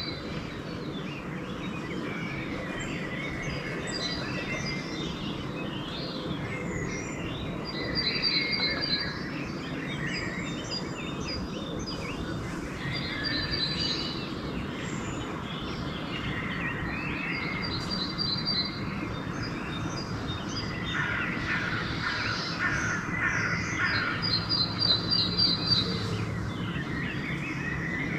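Dawn chorus of several songbirds, one repeating a short, high, rapid trilled phrase every few seconds. A run of rapid, repeated calls, likely crow caws, comes about three-quarters of the way through.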